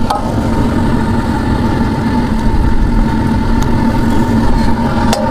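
Large outdoor gas wok burner running steadily under a giant wok of frying chilies, a loud, even rushing with a steady hum. Two sharp knocks cut through it, one at the start and one near the end.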